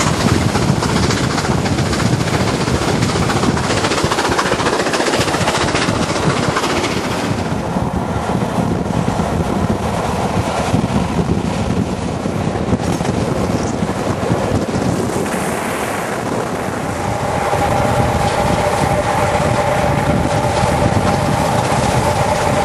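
BR Standard Class 7 'Britannia' Pacific steam locomotive 70013 Oliver Cromwell and its train running at speed, heard from an open coach window: dense rush of train noise with rail clatter and wind on the microphone. A steady two-note tone comes in about three-quarters of the way through.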